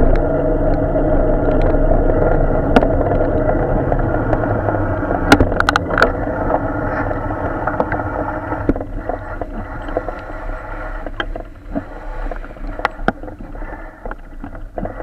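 Traffic noise heard from a bicycle riding past a queue of idling cars and a truck on a wet road: a steady engine hum that fades over the seconds. A few sharp knocks break through, with a quick cluster of them about five to six seconds in.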